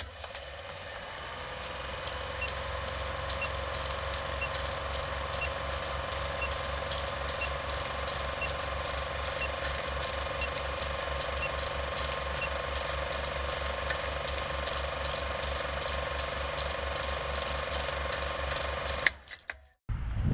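Vintage film projector sound effect: a rapid, even mechanical clatter over a pulsing hum, with a short high beep once a second about eleven times for the countdown leader. It cuts off suddenly near the end.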